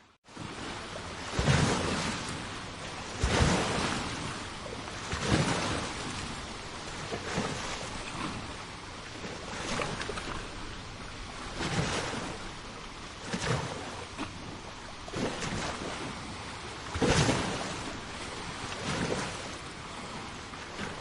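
Small sea waves breaking and washing onto a shore, one surge about every two seconds over a steady wash of water. A split-second gap in the sound comes right at the start.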